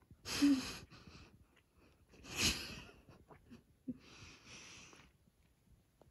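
Close, heavy breathing: three loud breaths about two seconds apart, the middle one the loudest, with a few faint mouth clicks between them, from a person chewing bony rabbit meat.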